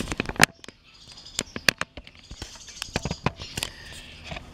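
Irregular sharp clicks and knocks of wooden boards being handled, with a louder knock about half a second in and another near 1.7 seconds; the table saw is not running.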